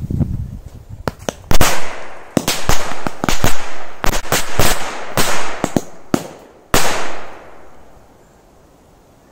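A bundle of Korsar-1 firecrackers going off in a rapid, irregular string of about twenty sharp bangs. It starts about a second in and ends with one of the loudest bangs about seven seconds in.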